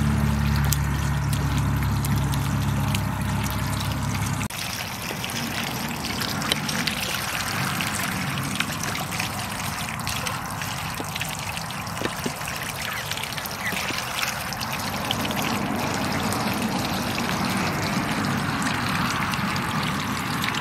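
Water from a garden hose overflowing the rim of a plastic tub and pouring steadily into a muddy puddle, a continuous splashing trickle. A low steady hum sounds over it at first and cuts off suddenly about four seconds in.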